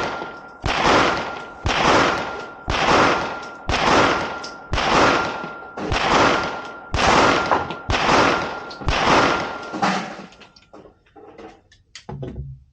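Pistol fired nine times at a steady pace of about one shot a second, each shot followed by a long fading echo, with a faint steady high tone under the string. After the last shot come small clicks and rattles of handling.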